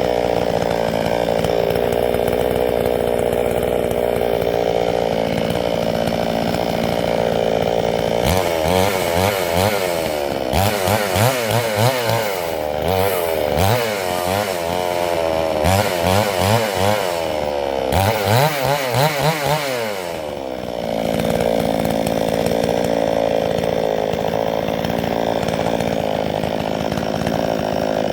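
Two-stroke chainsaw running in a long lengthwise milling cut through a log in a vertical chainsaw mill. The engine holds a steady pitch, then from about 8 to 21 seconds in its pitch swings up and down again and again before settling back to a steady run.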